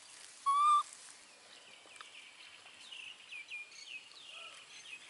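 A single short, clear whistled animal call about half a second in, followed by a run of faint, quick, downward-sliding chirps.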